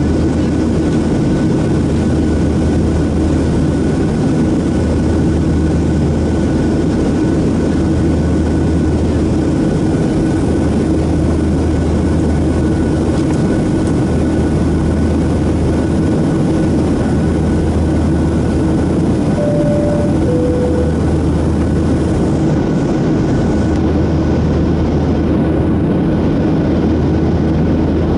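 Boeing 737-700 cabin noise during the climb: the steady roar of the CFM56-7B jet engines and airflow, with a low hum that swells and fades every couple of seconds. About two-thirds of the way through, the cabin chime sounds once, a high note then a lower one.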